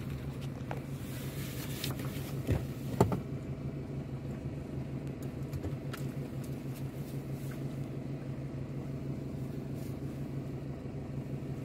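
Idling vehicle engine, a steady low hum heard from inside the cab. Two short knocks come about two and a half and three seconds in; the second is the loudest sound.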